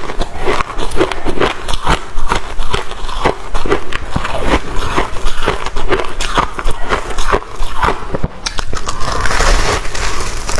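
Close-miked crunching of freezer frost being chewed and bitten: dense, crisp crunches several times a second, with a fresh bite near the end.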